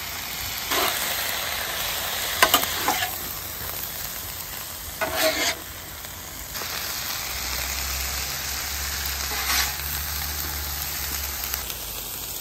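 Beef and vegetable stir-fry sizzling on a propane flat-top griddle as sauce is poured over it, with a metal spatula scraping and tossing the food in several short strokes.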